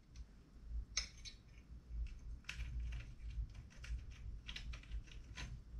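Scattered light clicks and small metallic taps of hardware handled by hand, as bolts are started into the X-axis gantry block of an Ender 3 3D printer, over a low steady hum.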